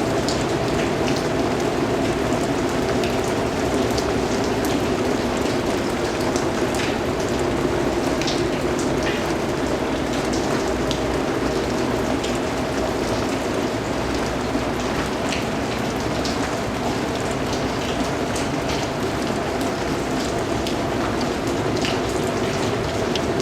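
Steady rain falling on a surface, an even hiss with scattered sharper drops ticking through it.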